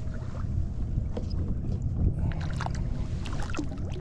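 Water lapping against a kayak hull under a low wind rumble on the microphone. From about halfway through comes a run of small splashes and drips as a caught fish is handled over the side and lowered into the water for release.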